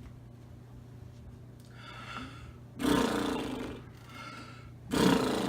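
A man blowing out hard twice through pursed lips with a buzzing, trumpet-like tone, each blow after a softer breath in. The vibration is meant to break up phlegm.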